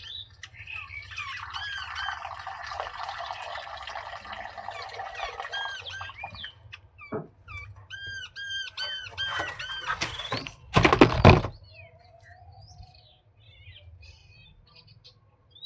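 Plum-headed parakeet chatter: rapid, repeated high chirps packed together, thinning to separate arched chirps after about seven seconds. A loud, brief burst of noise comes about eleven seconds in, followed by softer scattered chirps.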